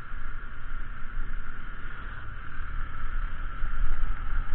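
A motorcycle on the move: wind buffeting the microphone as a low, uneven rumble over a steady drone from the riding.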